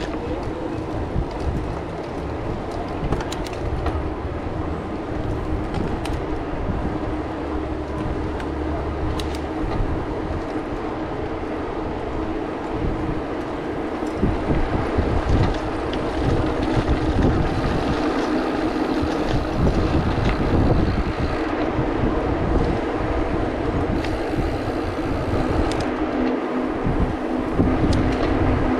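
Rushing wind noise on the microphone and tyres rolling on asphalt as a mountain bike rides in a group of cyclists, with a steady low hum underneath. It grows a little louder about halfway through as the pace picks up.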